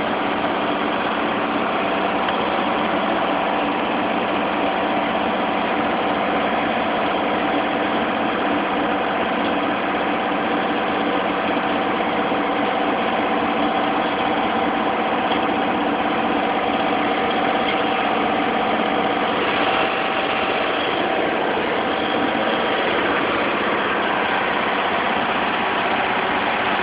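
An engine idling steadily, with a constant hum and no change in speed.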